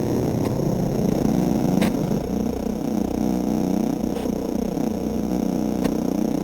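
Designed cinematic sound effect: a dense, warbling drone of many overlapping tones sliding up and down over a low rumble.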